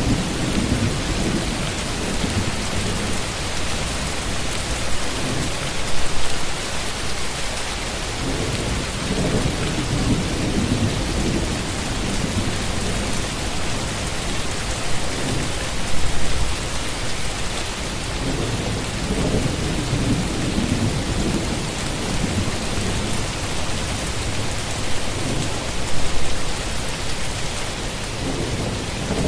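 Steady heavy rain with thunder rumbling low, swelling every few seconds and loudest about every ten seconds.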